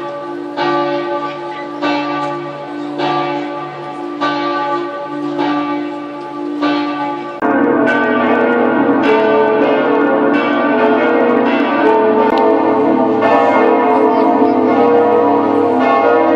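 Church bells ringing: at first one bell struck about once a second, each stroke ringing on; a little past halfway it changes suddenly to several bells pealing together, louder.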